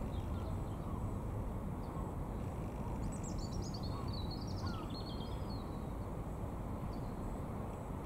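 A bird twitters in a quick run of high chirps for about two seconds, a few seconds in, over a steady low background rumble.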